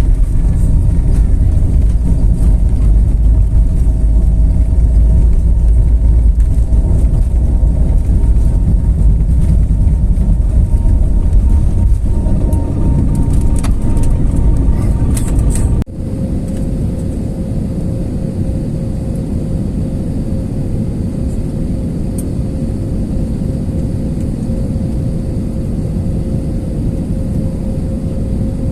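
Airbus A320neo jet engine and airframe rumble: a loud low rumble with steady tones, which cuts off suddenly about sixteen seconds in to a quieter steady rumble carrying a single steady whine.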